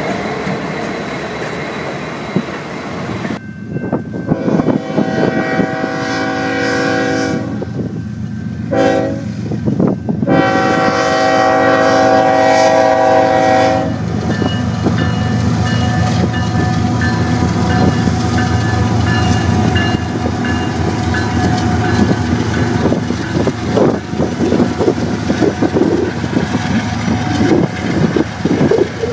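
Freight train wheels rumbling past on the rails. Then a Union Pacific diesel locomotive's air horn sounds a long blast, a short one and another long blast as it approaches a grade crossing. The locomotive consist then drones past, with the wheels clicking over the rail joints.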